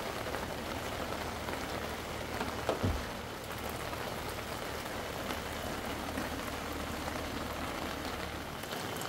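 Heavy rain falling steadily, an even patter throughout. A single brief low thump sounds about three seconds in.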